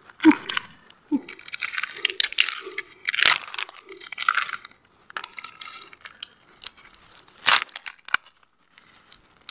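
Dry leaf litter rustling and crunching as land snails are scooped up by hand, in short irregular bursts, with a few sharp clacks of shell against shell.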